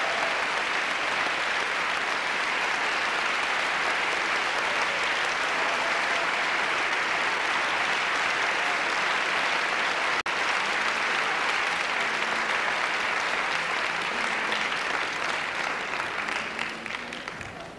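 Large audience applauding steadily. The applause drops out for an instant about ten seconds in, then fades away near the end.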